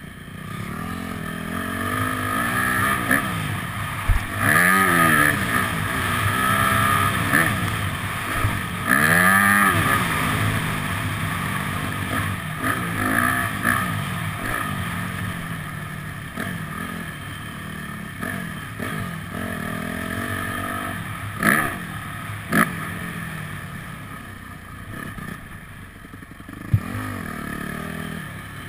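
Yamaha motocross bike's engine being ridden hard, the revs climbing and dropping again and again as the rider works the throttle and gears, loudest in the first ten seconds. A few sharp knocks come in the second half.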